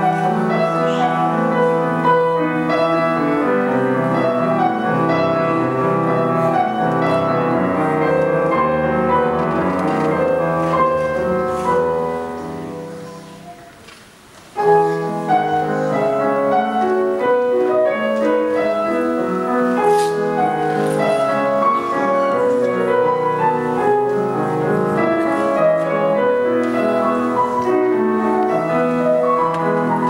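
Steinway grand piano played solo in a classical set of variations; about halfway through, a phrase dies away to a brief pause, then playing starts again.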